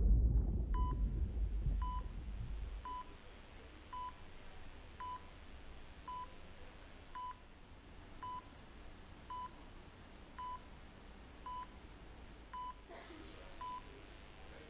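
Hospital heart monitor beeping steadily, one short high beep about once a second, marking each heartbeat. A low rumble dies away over the first couple of seconds.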